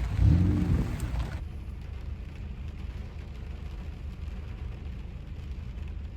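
Steady low rumble of a car running, with faint even noise over it.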